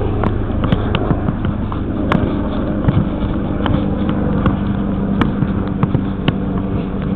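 Air ambulance helicopter droning steadily overhead, with a low rumble beneath it. Irregular knocks of footsteps and head-camera movement break through it, about one or two a second.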